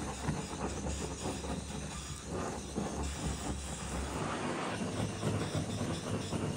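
Handheld butane blowtorch burning with a steady rushing hiss as its flame singes the skin of a plucked goose; the low rumble under it drops away about four seconds in.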